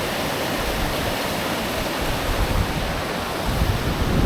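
Steady rushing of strong wind, with gusts buffeting the microphone in low rumbles that come more often in the second half.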